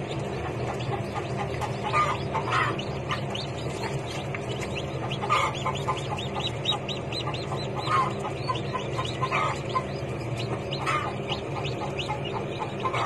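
Newly hatched chicks peeping: a continuous stream of short, high cheeps, several a second, with louder calls about two, five, eight, nine and eleven seconds in. A steady low hum runs underneath.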